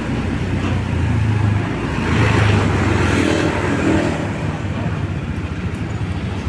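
Hino bus diesel engine running at an easy pace through its deep, snoring ('ngorok') exhaust, the low drone swelling and easing slightly.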